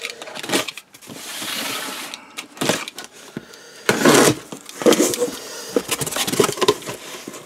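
A box cutter slitting the packing tape on a cardboard box, heard as a long swish about a second in, followed by knocks and scraping as the cardboard flaps are pulled open.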